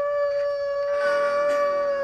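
A dog howling in one long, steady held note, heard through a TV's speaker.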